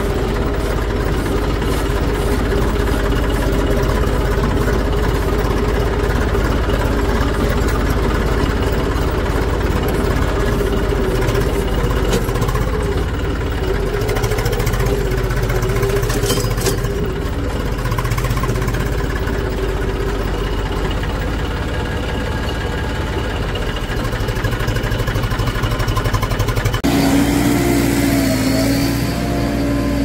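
Diesel engines of a backhoe loader and farm tractors running steadily at work, with a constant engine drone. Near the end the engine sound changes abruptly to a different, lower note.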